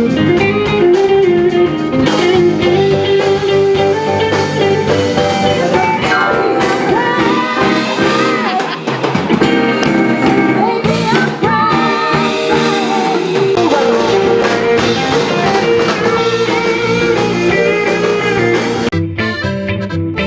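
Background music: a blues-style song with guitar and a singing voice, with a change in the arrangement near the end.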